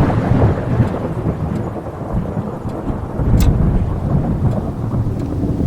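Thunderstorm sound effect: rolling thunder rumbling over steady rain, with one sharp crack about three and a half seconds in.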